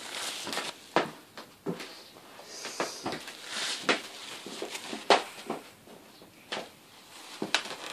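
Scattered light clicks and knocks, roughly one a second, over faint room noise.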